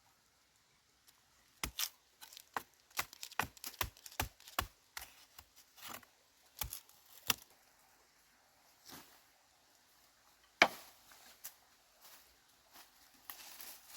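A quick, uneven series of sharp knocks, several to a second at its busiest, then a few spaced-out knocks and one louder knock near the end.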